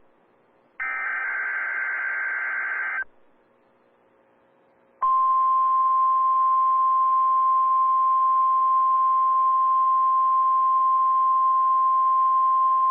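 NOAA Weather Radio alert signalling: a roughly two-second burst of rapid warbling SAME digital data tones, then about two seconds later the 1050 Hz warning alarm tone starts, one loud steady pitch that holds on.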